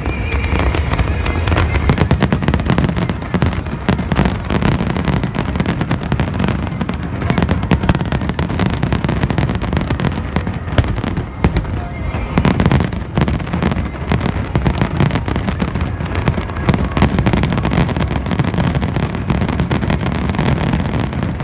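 Fireworks display: a dense, continuous run of rapid crackling and popping from many shells bursting at once, with heavier booms underneath. Music plays along with it.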